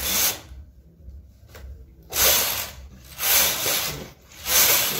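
Knitting machine carriage being swept across the needle bed, a rasping whoosh with each pass, four passes, the last three about a second apart, as rows of yarn are knitted.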